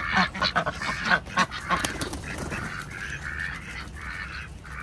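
Domestic ducks quacking: a quick run of short calls, then slower, evenly spaced quacks about twice a second over the last couple of seconds.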